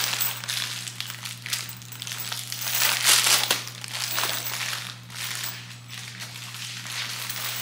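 Crinkly packing wrap crumpling and rustling in irregular handfuls as it is pulled off and out of a new handbag, loudest about three seconds in.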